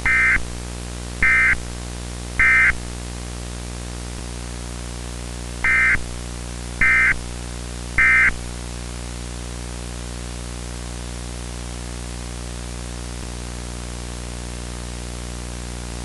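Emergency Alert System end-of-message data bursts: two sets of three short, raspy digital data bursts about a second apart. A steady electrical hum and static run underneath.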